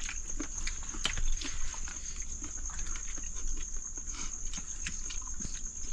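People eating with their bare hands from a banana-leaf spread: irregular small clicks and smacks of chewing and lips, under a steady high-pitched whine.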